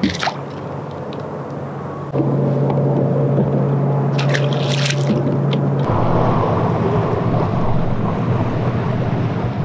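Bow-mounted electric trolling motor switching on about two seconds in and running with a steady low hum; its sound changes, becoming noisier, about six seconds in.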